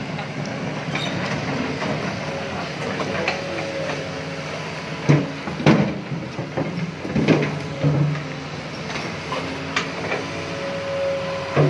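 Doosan crawler excavator's diesel engine running as the machine travels on its steel tracks over a rocky riverbed, with a clattering of track links. Several loud clanks and knocks come about five to eight seconds in and once more near the end.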